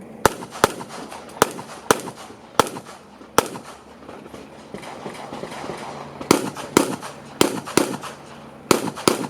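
Pistol shots in a practical-shooting course of fire: about a dozen sharp reports, mostly in quick pairs, with a pause of about three seconds midway before the firing resumes.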